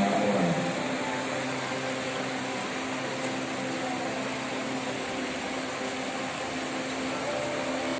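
Paddlewheel pond aerators running: a steady mechanical hum from their motors over a continuous splashing wash of churned water.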